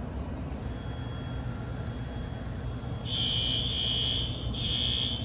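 Fire alarm horn sounding a high, buzzing tone: faint at first, then loud from about three seconds in, with a brief break before it sounds again.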